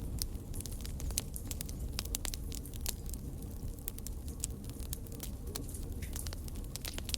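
Burning fire crackling, with irregular sharp pops and snaps over a steady low rumble.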